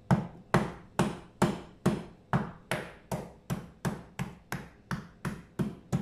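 Fresh ginger root being pounded on a cutting board with a blunt tool to crush it, about fifteen steady knocks at roughly two and a half a second.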